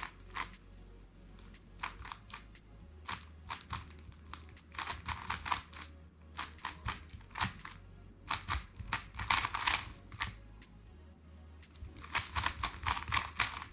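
Plastic 3x3 speed cube being turned fast during a timed solve: spurts of rapid clicking and clacking layer turns, broken by short pauses.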